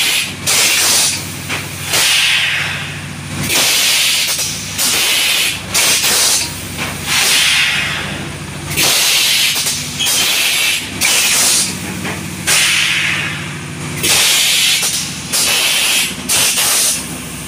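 Fully pneumatic PET jar blow-moulding machine cycling: repeated sharp hisses of compressed air, about one a second, some longer than others, over a steady low machine hum.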